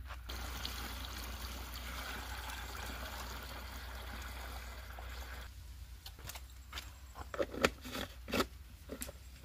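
Water poured from a plastic bucket into a knapsack sprayer's tank, a steady splashing stream that stops about five and a half seconds in. Then a few light knocks and clicks as the tank's lid is handled.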